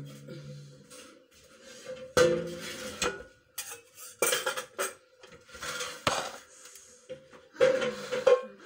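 Metal oven tray and cookware clattering as the pan is fetched and set down on the counter: a run of sharp clanks and scrapes, over a faint steady hum.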